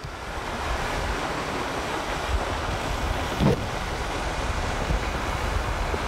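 Wind buffeting the microphone: a steady rushing noise with a heavy, gusting low rumble. About three and a half seconds in there is one brief pitched sound that rises and falls.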